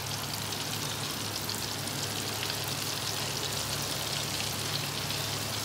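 Battered chicken strips deep-frying in a turkey-fryer pot of oil at about 375°F: a steady sizzle of oil bubbling around the freshly added batch.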